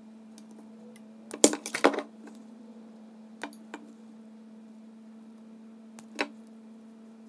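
Sharp clicks and rattles of small parts and wire leads being handled on a wooden workbench: a loud cluster about a second and a half in, then a few single clicks later. A steady low hum from a running heater lies under them.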